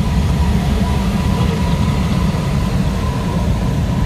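Loud, steady rush and rumble of air streaming past an ASK 21 glider's cockpit during aerobatic manoeuvres, with a faint thin steady tone above it.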